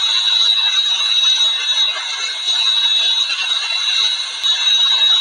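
Sukhoi Su-30MKI's AL-31FP turbofan engines running on the ground, a steady high-pitched whine over a loud even rush.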